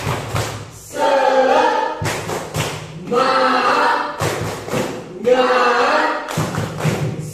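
A group of school students singing together, with a sharp thump about every two seconds that marks the beat of the song.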